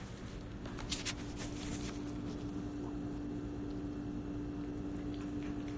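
Cat chewing and smacking its lips over its food: a few short wet clicks about one to two seconds in, then fainter ones, over a steady low hum.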